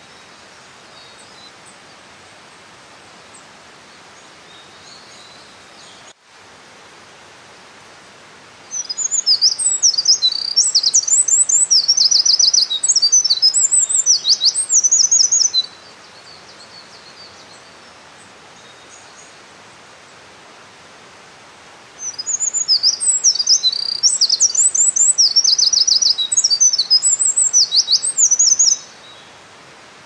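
Eurasian wren singing its loud territorial song: two long strings of rapid, high trills and twitters, each about seven seconds, the first starting about nine seconds in and the second about twenty-two seconds in, over the steady rush of a mountain stream.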